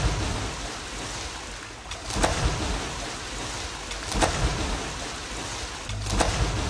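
Open speedboat running over the sea: a steady low engine hum under rushing water and wind, with a sharper splash about every two seconds.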